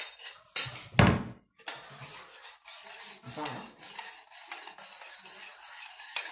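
A metal spoon clinking and scraping in a small stainless steel saucepan of syrup, with one heavier knock about a second in.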